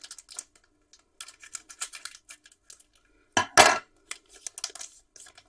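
Foil trading-card pack wrapper crinkling and rustling as it is cut and handled. About three and a half seconds in comes a loud metal clatter, two quick hits, as the scissors are set down on the table.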